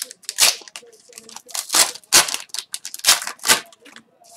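Foil wrapper of an Upper Deck Series 1 retail hockey card pack being torn and peeled open, in about five short tearing and crinkling bursts.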